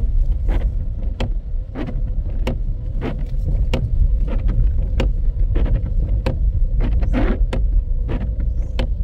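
A steady low rumble with irregular sharp knocks or taps, several a second.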